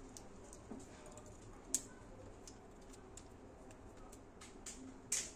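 Metal tweezers and a pry tool clicking and scraping against an opened phone's frame and internal parts: faint, scattered light ticks, with a sharp click a little under two seconds in and a louder one near the end.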